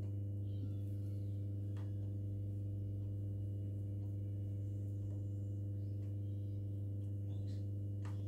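Steady low electrical hum at an even level, with a few faint clicks.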